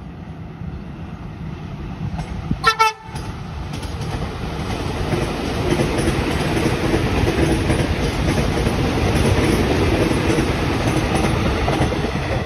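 KRL commuter electric multiple unit gives a short horn toot about two and a half seconds in, then passes close by: a loud, steady rumble and clatter of wheels on the rails that builds up and holds.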